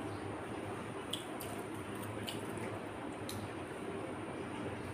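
Hands squishing and mixing rice with curry on clay plates, with soft wet eating sounds and a few faint clicks, over a steady low background hum.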